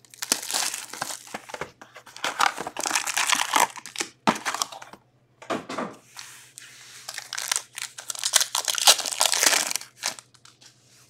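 Plastic shrink wrap crinkling and tearing as it is stripped off a box of hockey cards, then foil card packs rustling in the hands and a pack wrapper torn open, in a run of rustling bursts that stops just before the end.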